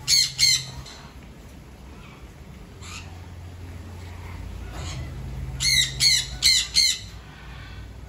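Moluccan cockatoo giving short, harsh squawks: two right at the start, a faint one about three seconds in, then four in quick succession from about five and a half seconds in.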